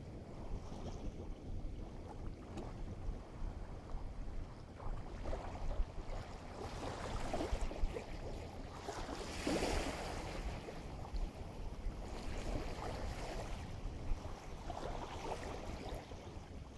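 Small waves washing in on the shore, the largest swelling up and falling away about halfway through, over a steady low rumble of wind on the microphone.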